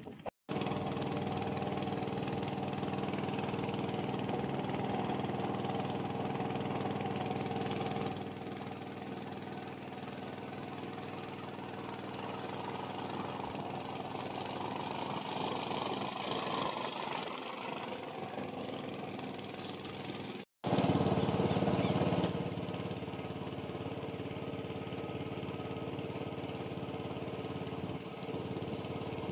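Small boat motor running steadily. Its level drops a little about a third of the way in, and it is briefly louder just after a short cut about two-thirds of the way through.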